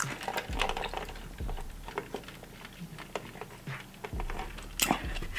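Close-miked sipping of lemonade through a straw from a foam cup: a run of small wet clicks and swallows, the loudest about five seconds in.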